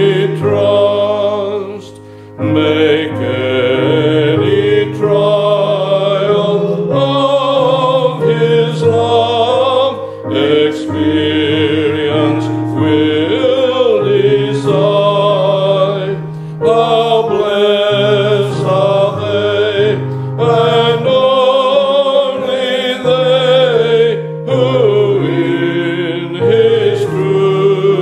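A hymn sung with piano accompaniment, in slow sustained phrases with short breaks between the lines.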